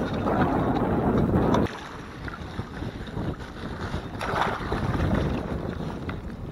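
Wind buffeting the microphone over a kayak on open water, dropping off abruptly under two seconds in and leaving softer water and hull noise.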